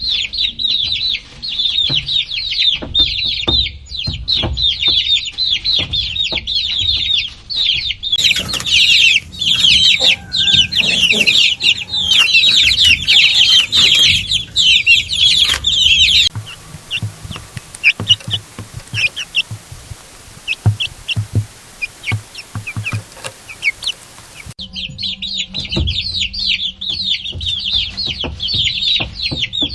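A crowd of baby chicks peeping non-stop in a dense, shrill chorus of short, high calls. Around the middle the chorus thins to fewer, scattered peeps, then swells back to a dense chorus near the end.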